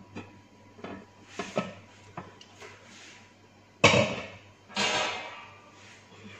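Glass and dishware being handled on a countertop: light clicks and knocks, then one sharp knock about four seconds in followed by a brief scraping rustle.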